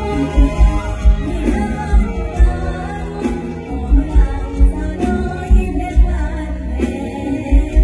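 Loud amplified stage music: a young female singer's vocal over a band with a heavy bass-drum beat.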